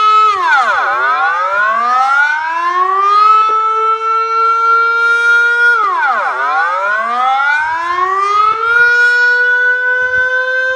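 Dutch public warning siren sounding its monthly test alarm: a loud rising and falling wail. The pitch drops sharply twice, then climbs back and holds for a few seconds each time.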